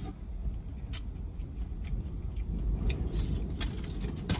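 Wind buffeting a parked car, heard from inside the cabin as an uneven low rumble that swells a little after the middle, with a few faint clicks.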